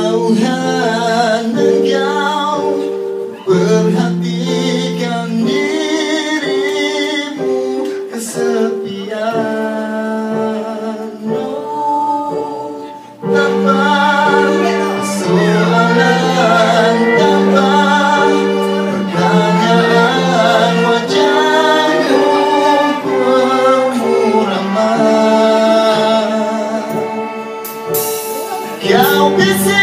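A man singing into a microphone with a live orchestra accompanying him: held chords under the voice, with the ensemble playing fuller from about halfway.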